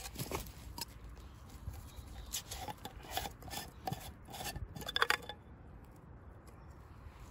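Brass Trangia spirit burner being handled: its screw-on cap twisted off and lifted away, making light clicks and brass-on-brass scraping that die down after about five seconds.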